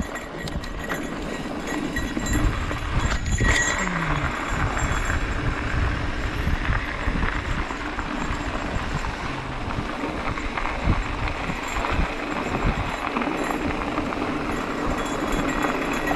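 Mountain bike rolling along a dirt trail: the tyres on dirt and the bike clattering over bumps, with wind buffeting the camera's microphone.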